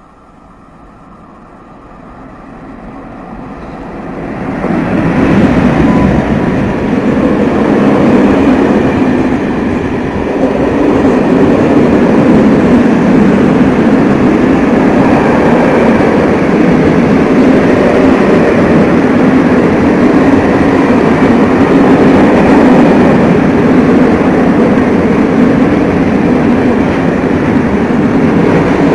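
A train approaching and then passing close by: its noise builds over the first five seconds, then a loud, steady rumble of wheels on rail carries on without letup as the long train goes by.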